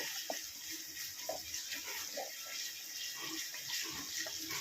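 Onions, garlic, green chillies and curry leaves sizzling as they fry in sesame oil, a steady hiss with scattered small pops.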